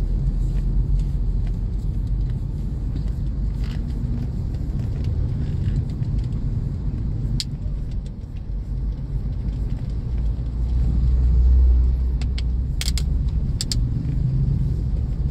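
Steady low rumble of a moving car heard from inside the cabin, swelling a little after the middle. A few short sharp clicks, a couple of them near the end.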